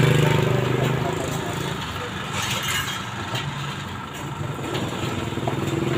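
Street ambience: a motor engine running steadily, fading out about two seconds in and coming back near the end, with people talking in the background.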